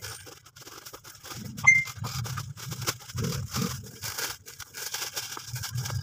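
Plastic bags and packaged-snack wrappers rustling and crinkling in quick irregular strokes as goods are packed by hand, with one short high electronic beep a little under two seconds in.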